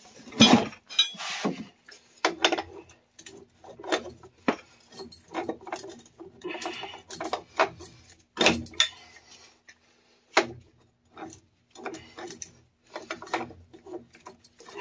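Irregular metal clinks and knocks as a pipe wrench is set on and worked against the pipe fittings by a water meter to loosen a joint.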